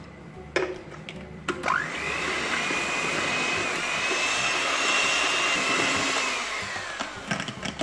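Electric hand mixer whipping egg whites to stiff peaks in a plastic jug under a splash guard: a couple of knocks, then the motor whines up about two seconds in, runs steadily, and winds down near the end.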